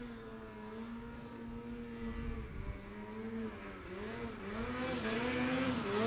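Snowmobile engine running, its pitch holding steady and then rising and dipping with the throttle from about halfway through, growing steadily louder.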